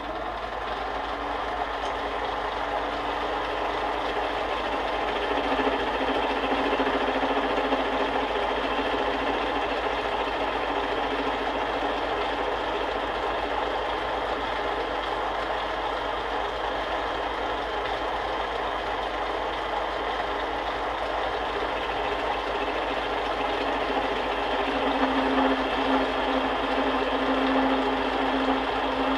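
Small benchtop metal lathe running, facing off the end of a steel allthread rod, with a little tool chatter.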